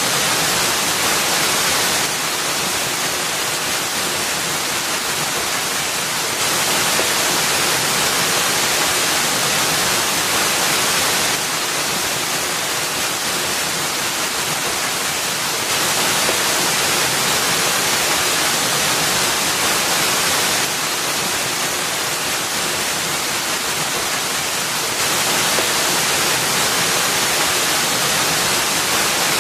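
Small waterfall pouring over rock ledges into a shallow pool: a steady rush of falling water, shifting a little in loudness every few seconds.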